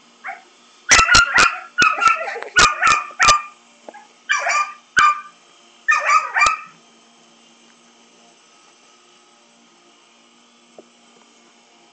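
A dog barking at a lawn mower: a quick run of sharp barks, then two more short bursts, falling silent after about seven seconds.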